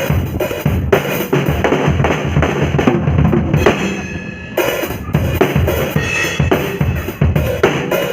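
Drum kit played solo: a dense run of drum strokes, thinning out briefly about four seconds in with something left ringing, then picking up again.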